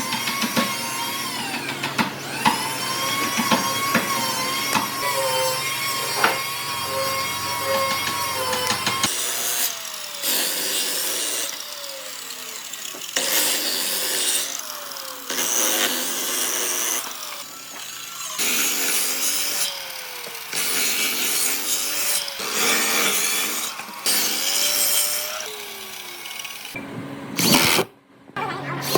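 A power tool working wood. A motor runs with a steady whine for the first several seconds, then makes a series of short cutting passes about a second each, with the pitch dipping between passes.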